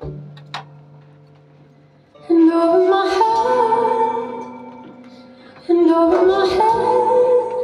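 A woman sings two long phrases of held notes, the first starting about two seconds in and the second just before the end, over a softly ringing acoustic guitar.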